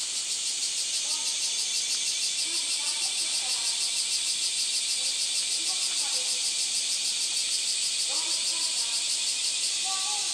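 Loud chorus of cicadas: a dense, high hiss that pulses evenly several times a second.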